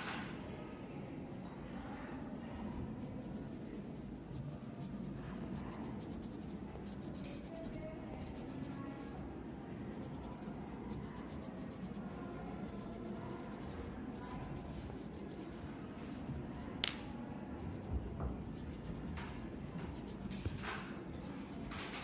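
Green colored pencil scratching on paper as a leaf outline is sketched, in soft strokes. A few sharp ticks come in the second half, the loudest about three quarters of the way through.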